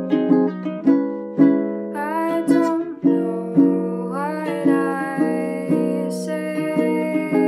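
Makala ukulele strummed in steady chords, with a woman's voice singing two short phrases over it, about two and four seconds in.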